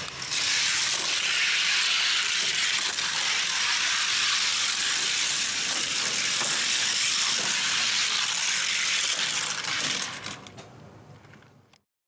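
Two Hot Wheels die-cast cars rolling fast down a plastic gravity-race track: a steady, loud rattling whir of small wheels on plastic track with scattered clicks, fading near the end.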